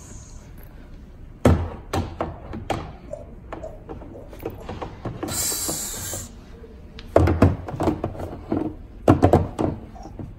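Plastic toys knocking and clattering as they are handled and set down on a toy playset: scattered knocks and thuds, with a brief hiss about halfway through.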